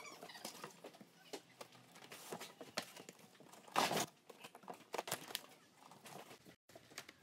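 Cardboard packaging being handled: a large box's lid lifted open and the inner cardboard boxes drawn out, giving scattered rustles, scrapes and light knocks, with a louder rustle about four seconds in.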